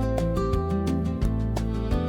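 Background music: a guitar-led track with a steady bass and a regular beat.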